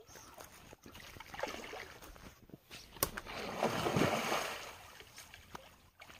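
A hooked rohu thrashing at the surface on the line, churning and splashing the water in uneven bursts, loudest about four seconds in. A sharp click is heard about three seconds in.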